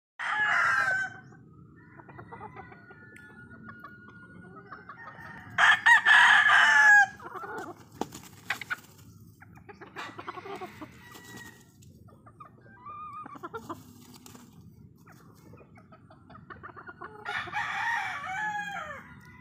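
Gamefowl roosters crowing: three loud crows, one at the very start, one about six seconds in (the loudest), and one near the end that falls in pitch as it fades. Fainter calls come in between.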